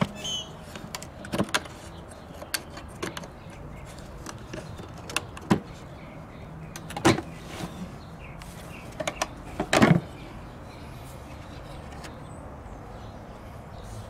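Metal latches and hasps of a wooden ammunition crate clinking as they are undone, and the wooden lid knocking as it is opened: a string of scattered clicks and knocks, the loudest about two thirds of the way through.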